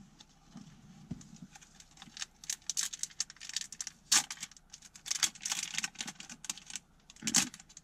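Pokémon booster pack's foil wrapper crinkling and tearing as it is opened by hand: a run of irregular crackles starting about two seconds in, with a sharper, louder crackle near the middle and another near the end.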